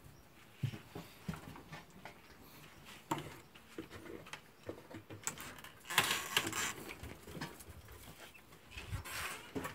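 Irregular rustling and scuffing with light knocks from rabbits moving about in a straw-lined hutch, with louder rustling about six seconds in and again near the end.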